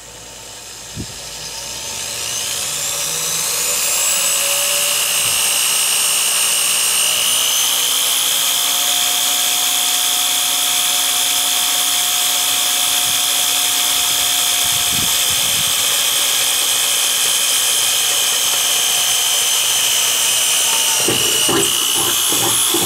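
Corded Makita half-inch-chuck drill with a small pilot bit drilling into the thin sheet-steel floor of a pickup bed. The motor's whine rises in pitch over the first few seconds, climbs again about seven seconds in, then holds steady, with a few knocks near the end.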